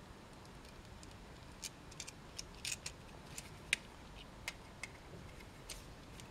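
Faint clicks and light scrapes of a screwdriver turning a terminal screw on a plastic PNVS push-button switch as stranded wire is fitted to it. About a dozen small sharp ticks come at uneven intervals, the loudest about three and a half seconds in.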